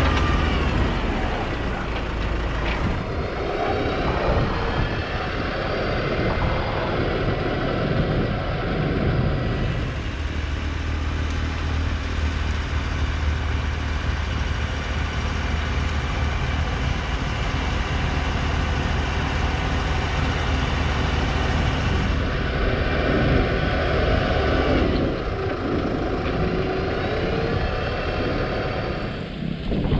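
Small tractor's engine running steadily, with the sound shifting about ten seconds in and again about twenty-two seconds in.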